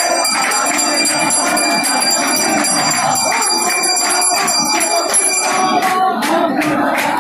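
Temple hand bell rung continuously during the pooja, its high ringing tones held steady. About six seconds in, sharp strikes about three a second begin.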